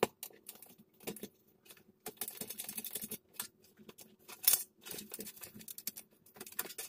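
Irregular light metallic clicks and clinks of small nuts and screws being handled and fitted by hand onto an amplifier chassis.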